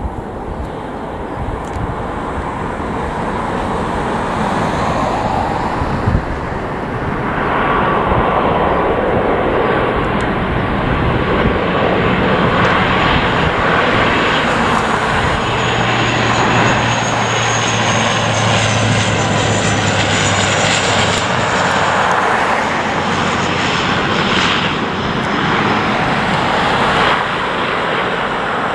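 Jet airliner's engines passing the runway, a loud steady rush that swells about seven seconds in, with a high whine that slowly falls in pitch as the aircraft goes by.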